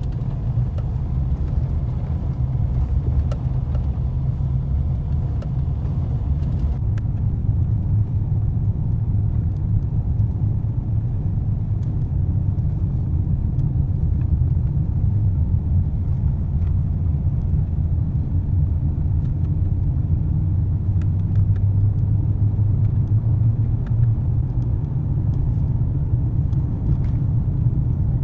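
Steady low rumble of road and engine noise heard inside a moving vehicle's cabin. The lighter hiss above the rumble drops away about seven seconds in.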